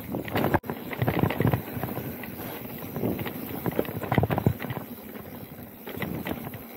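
Specialized Turbo Levo Gen 3 e-mountain bike riding down a dirt trail: tyres rolling on packed dirt with an irregular run of knocks and rattles from the bike over bumps. The sound cuts out for an instant about half a second in.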